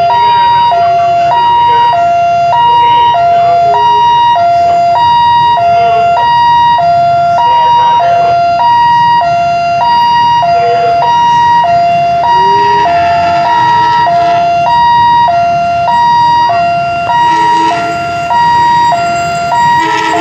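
Electronic railway level-crossing alarm sounding a steady two-tone warning, a high and a low tone alternating about half a second each, signalling an approaching train.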